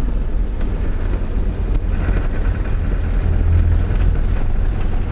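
Vehicle driving on a rough sandy desert track, heard inside the cabin: a steady low rumble of engine and tyres with faint rattles from the bumpy ride.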